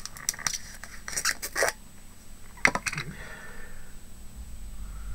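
Small hard objects clicking and clattering in a few quick clusters as craft supplies on a work table are rummaged through, then a low rumble of handling near the end.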